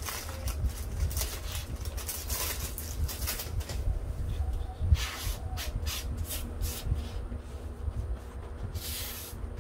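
Loose craft moss being brushed and swept off a work surface by hand: irregular rustling, brushing swishes, with one soft knock about halfway through.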